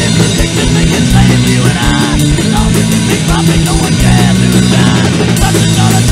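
Punk rock song playing loud: a full band of electric guitars and drum kit, with held chords and a steady drum beat.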